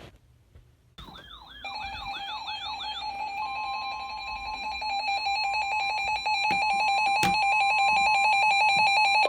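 Emergency alert tones. Warbling, siren-like electronic alarms start about a second in and settle into rapidly pulsing beeps. A few seconds in they are joined by the steady 1050 Hz NOAA Weather Radio warning alarm tone, which signals a warning broadcast to follow. There is a sharp click about seven seconds in.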